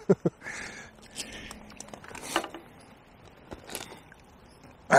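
Scattered light handling sounds from a landing net with a freshly caught tench in it: a few small knocks and soft rustles, with one louder brief rustling swish about halfway through.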